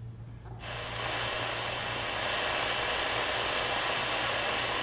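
Shortwave static from a Sangean ATS-909X2 receiver tuned in AM to 4980 kHz: a steady hiss with no readable station, coming on about half a second in over a low hum. The receiver's SNR reading shows 0 dB, so this is band noise, not a broadcast.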